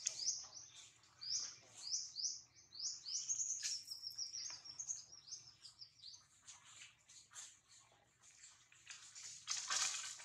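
A bird singing a run of quick, high, down-slurred chirps, about two a second, over the first half, then softer scattered notes, with a brief louder rustling noise near the end.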